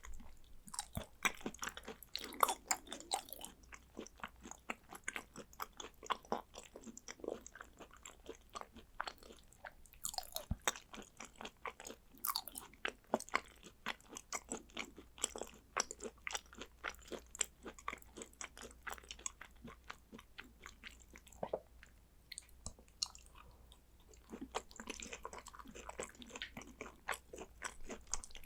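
Close-miked eating of raw Korean beef and sea urchin roe: a steady run of quick chewing clicks, smacks and soft crunches.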